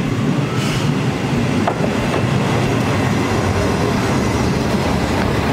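Watarase Keikoku Railway diesel railcar running past close by, its wheels rolling on the rails with a steady low noise. There is a short burst of high hiss near the start and a single click a little later.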